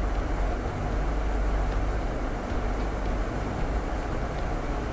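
Steady rumble and rushing air of a jet aircraft in flight, heaviest in the deep bass.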